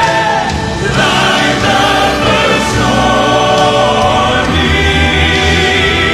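Male gospel quartet singing in close harmony, backed by a live band.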